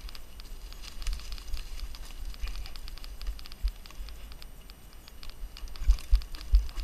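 Mountain bike rolling fast down leaf-covered dirt singletrack: tyres crackling over dry leaves and dirt, with many quick irregular clicks and rattles from the bike. A few heavy low thumps come near the end as it goes over bumps.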